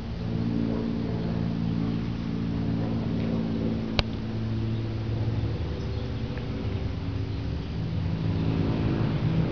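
A steady machine hum made of several even pitched tones, from some running motor or engine, with one sharp click about four seconds in.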